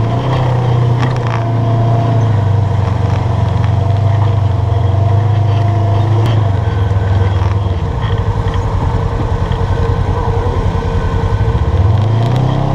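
UTV engine running under load while climbing rock ledges. About eight seconds in it drops to a low, pulsing chug, then revs back up near the end.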